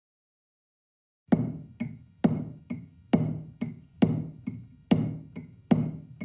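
Stonemason's mallet striking a chisel into stone in a steady rhythm of about two blows a second, each blow ringing briefly. It starts about a second in.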